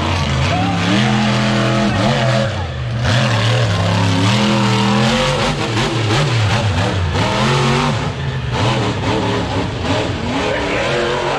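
Monster truck engine revving hard, its pitch climbing and dropping again and again.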